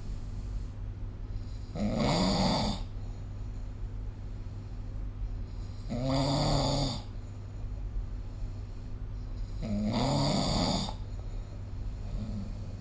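A sleeping person snoring: three snores about four seconds apart, each lasting about a second, over a steady low hum.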